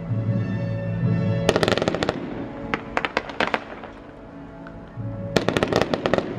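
Fireworks display: rapid clusters of sharp firework reports, about a second and a half in, around three seconds in and again near the end, over music playing.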